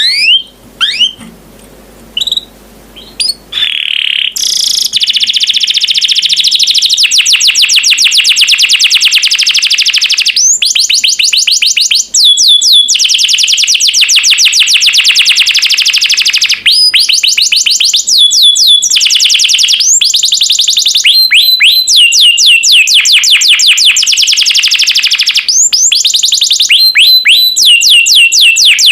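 Domestic canary singing. It opens with a few separate rising chirps, then from about four seconds in gives a long, loud song of rapid trills: runs of fast repeated high notes, each broken off by a short pause.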